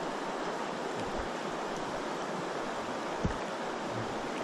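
Fast, shallow mountain river rushing steadily over a riffle, a constant even wash of water. A brief low thump about three seconds in.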